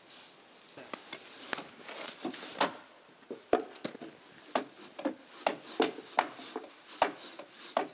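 Snow tool scraping and knocking against wooden deck steps as snow is pushed off them, in repeated strokes that turn into crisp knocks about two a second in the second half.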